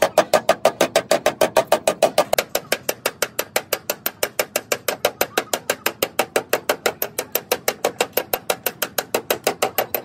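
Body hammer tapping a car's sheet-metal rear quarter panel in fast, even strokes, about six or seven a second, to work out dents. The metal rings under the strokes for the first couple of seconds.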